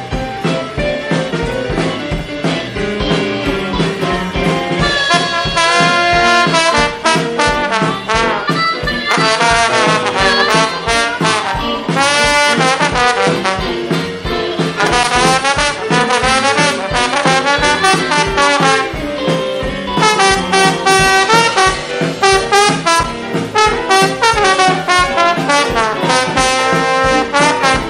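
Live jazz band playing with keyboard, bass and drums, and from about five seconds in a trombone playing a lead line of bending, held notes over the band.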